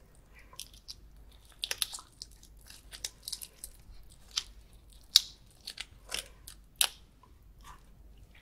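Shell of a grilled, shell-on prawn being cracked and peeled apart by hand: a series of sharp crackles and snaps, close-miked, the loudest about five seconds in.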